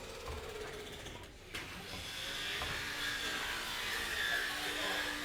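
Electric jigsaw running with a steady high motor whine, starting about a second and a half in and getting louder.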